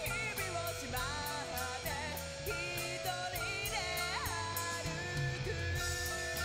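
Rock music with electric guitar and a melody that slides in pitch.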